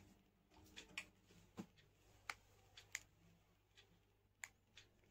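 A string of faint, sharp clicks, irregularly spaced, as the buttons and plastic body of a Wecool S4 selfie stick's built-in light are pressed and handled to work the light.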